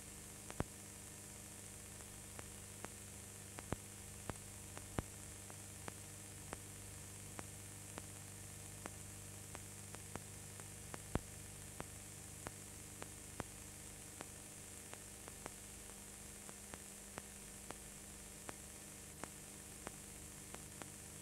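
Faint steady hiss and electrical mains hum, with small sharp clicks about every half second: the noise floor of an old home-movie transfer that carries no recorded sound.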